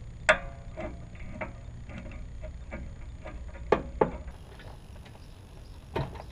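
Ratchet with a 7mm Allen bit working a brake caliper mounting bolt: irregular ratchet clicks with a few louder metallic clinks.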